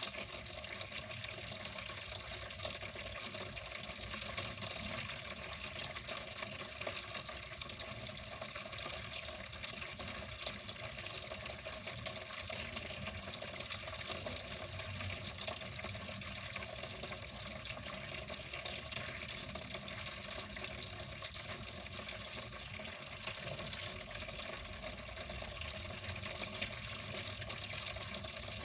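Water running steadily in a continuous stream, an even rushing splash that does not change.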